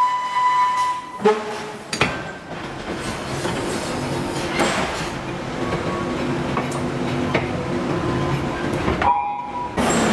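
Forge shop machinery with a steady mechanical hum and whine. Two sharp metallic strikes come about one and two seconds in, and the sound breaks off briefly near the end.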